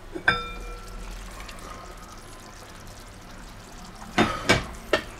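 Enamelled cast-iron Dutch oven lid clinking with a short metallic ring about a quarter second in, then knocking several times near the end as it is lifted off the pot and set down on the glass-ceramic hob.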